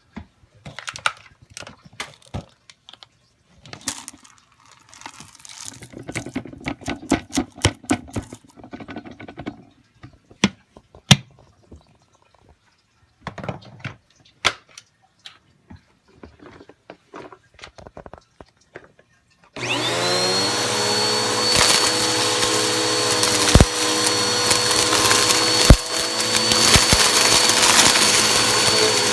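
Scattered clicks, taps and short rattles of things being handled. About twenty seconds in, a vacuum cleaner switches on and runs steadily, its motor whine rising quickly to a steady pitch.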